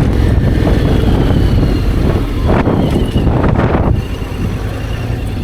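Honda X-ADV 750 parallel-twin motorcycle engine running on the move, with heavy wind noise on the microphone. The sound drops suddenly about four seconds in.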